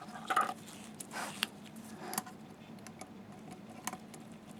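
A few light clicks and taps of small metal parts as the observer tube's threaded pieces are handled and turned.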